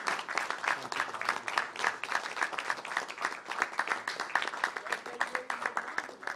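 Applause from a small group of people clapping, a dense patter of hand claps that stops at the end.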